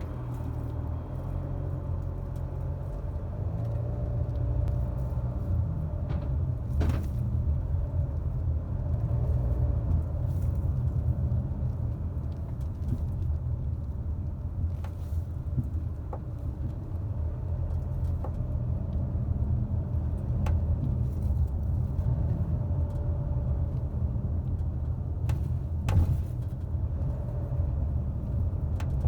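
Car driving, a steady low road rumble, with a few sharp knocks, the clearest about 7 seconds in and again near 26 seconds, as the wheels cross road seams: a knock over seams that points to a worn suspension part.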